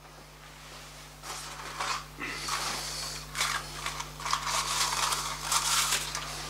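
Irregular rustling and shuffling of a person moving about and handling things, starting about a second in, over a faint steady electrical hum.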